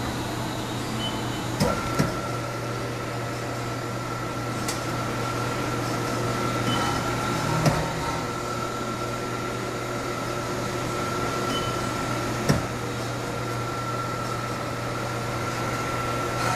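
Turri spiral mixer running with its bowl empty and the guard closed: a steady motor hum with a higher whine that comes in about one and a half seconds in. A few sharp clicks or knocks stand out against it.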